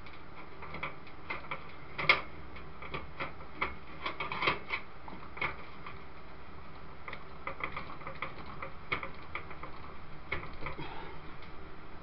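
Irregular small clicks and metallic taps of screws and a case fan being fitted against the steel frame of a PC tower case, with sharper knocks about two and four and a half seconds in and a run of quicker small clicks in the second half.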